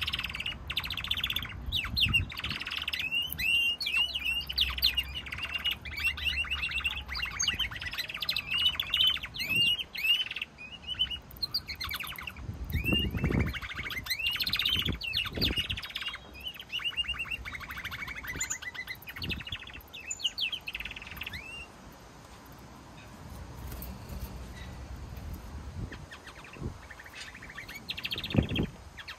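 Pet canaries singing: long runs of rapid trills and warbled, chirping phrases, which break off about two thirds of the way through and start again near the end. A few dull low thumps sound in between.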